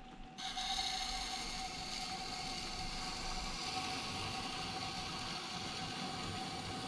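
Knife steel grinding against the turning stone of a motorized wet sharpening system. The grinding starts about half a second in and keeps an even, steady rasp over the machine's constant hum.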